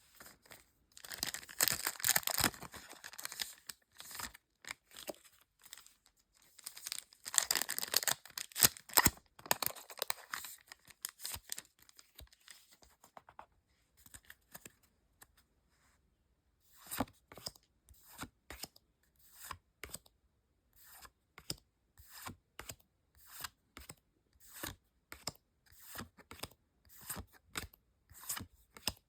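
A Pokémon card booster pack's foil wrapper being torn open, in two stretches of crinkly tearing. After a pause, the cards are slid off the stack one by one, making a short swish about once a second.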